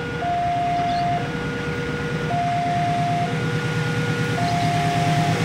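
Railway level-crossing warning alarm sounding its two-tone signal, a higher and a lower tone taking turns about once a second. Under it, the low rumble of an approaching diesel-hauled fuel tanker train grows steadily louder.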